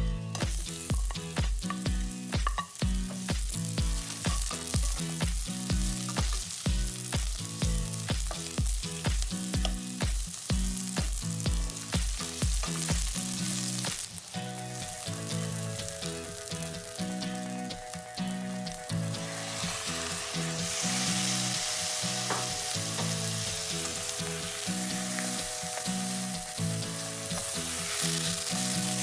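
Red onion and garlic sizzling in hot oil in a stainless steel pan, stirred with a wooden spoon; the sizzle grows louder about two-thirds of the way through. Background music with a steady beat runs underneath.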